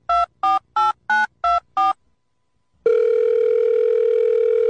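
Touch-tone telephone keypad dialling: a quick run of about six two-tone beeps, roughly three a second. After a pause of under a second comes one steady ringback tone of about two seconds, the call ringing through at the other end.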